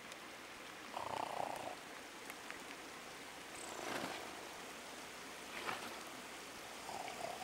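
A man snoring while asleep: one raspy snore about a second in and a fainter one near the end, over a faint steady hiss with a couple of small knocks between them.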